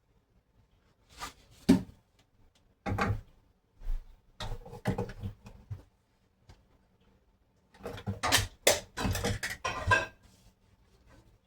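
Irregular knocks, clicks and scraping in short bursts, with a busier run of them near the end.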